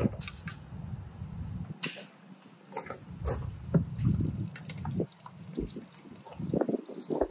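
Liquid splashing and dripping, with irregular light clinks and knocks of handling.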